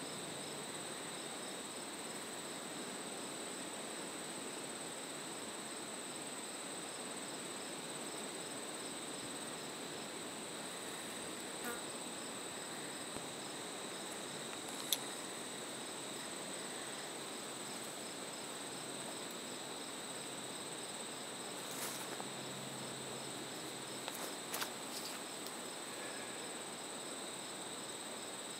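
Chorus of singing insects: a steady, unbroken high trill with a fainter, regularly pulsing song between its tones. A few short sharp clicks break in, the loudest about halfway through and a cluster near the end.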